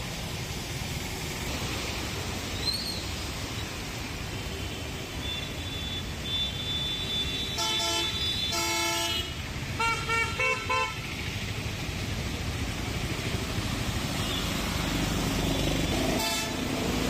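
Vehicle horns honking in street traffic on a flooded road, over a steady wash of traffic and water noise. Two longer honks come about eight seconds in, then a quick run of about four short beeps.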